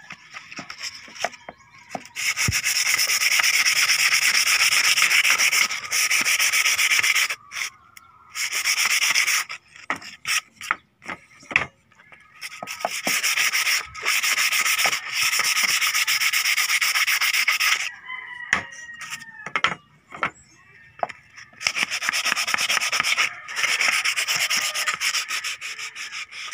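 Abrasive paper rubbed by hand over split-bamboo pieces to smooth them: long spells of steady scratchy sanding, broken by short pauses with light clicks and knocks as the pieces are handled.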